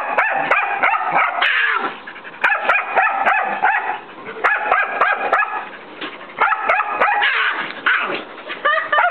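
A young mixed-breed dog barking in quick runs of several barks a second, with short pauses between runs: barking at an older Chihuahua to get it to play.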